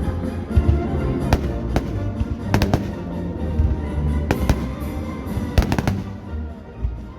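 Aerial fireworks going off in a string of sharp bangs and cracks, a few seconds apart and sometimes in quick pairs, over music with a heavy steady bass.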